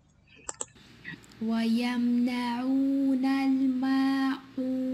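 A student's recorded voice reciting a Quran verse in a slow, drawn-out chant, starting about a second and a half in, with a short break near the end before a long held note. The long 'oo' on the waw carries a nasal sound, which the teacher corrects.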